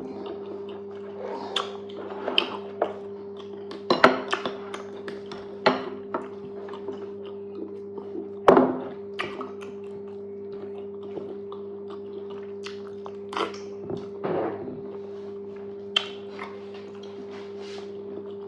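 Close-up eating sounds of fufu and okra soup: irregular wet chewing and mouth smacks with occasional sharper knocks, the loudest two at about four and eight seconds in, over a steady low hum.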